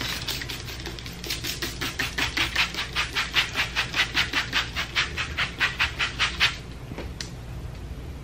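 Plastic trigger spray bottle misting water onto hair, squeezed in quick succession about four times a second for about five seconds, then stopping.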